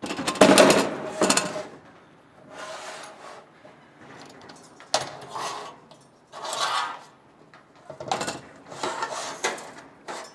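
About six bursts of knocking and clattering as a coffee lift cyclone is handled and set onto its mounting plate. The loudest comes near the start with a short metallic ring, and there is a sharp click about five seconds in.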